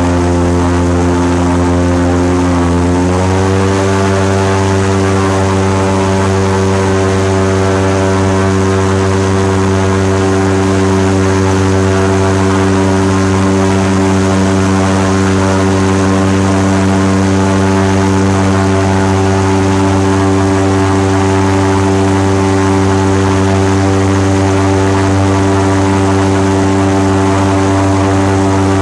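Airboat's engine and large rear propeller running under way: a loud, steady drone whose pitch steps up about three seconds in and then holds.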